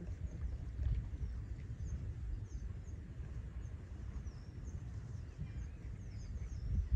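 Wind rumbling on the microphone, with faint, repeated high bird chirps in the background.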